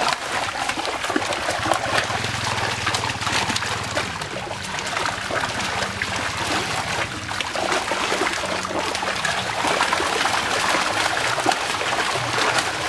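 Trapped fish thrashing and leaping at the water's surface, a continuous patter of small splashes.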